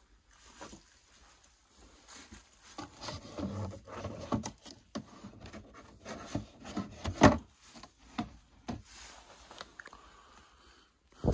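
Stacked flat boxes being handled and shifted on a shelf: rubbing and scraping with irregular knocks, the loudest a sharp knock about seven seconds in.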